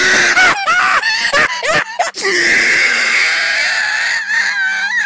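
A man laughing hard: high-pitched, wheezy laughter, first in short squeaky yelps, then a long breathy wheeze from about two seconds in, with squeaks again near the end.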